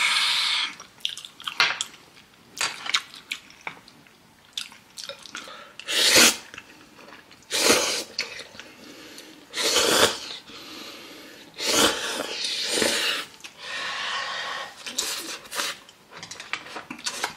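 A person slurping ramen noodles loudly, in about five long noisy slurps spread through the latter two-thirds, with chewing and small mouth clicks between them. It opens with a short sharp breathy burst.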